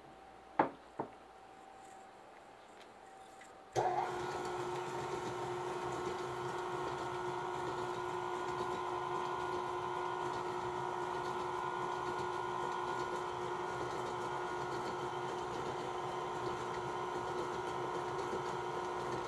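Two short clicks, then about four seconds in a KitchenAid stand mixer's motor starts suddenly and runs steadily, its paddle beating chocolate cake batter.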